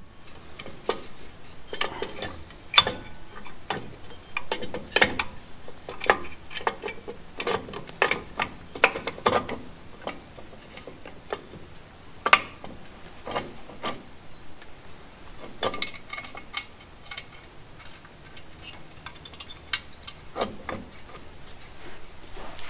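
Irregular metallic clicks, clinks and light knocks as a new rear drum brake shoe and its hold-down pin and springs are worked into place against the steel backing plate.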